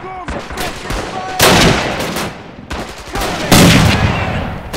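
Battle sound effects: rifle and machine-gun fire, with two loud blasts about two seconds apart, the first about a second and a half in and the second near three and a half seconds in, each trailing off.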